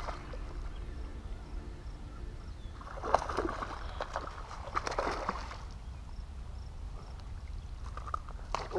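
A hooked largemouth bass splashing and thrashing at the water's surface as it is reeled in to the bank, in two bursts about three and five seconds in, over a low rumble of wind on the microphone.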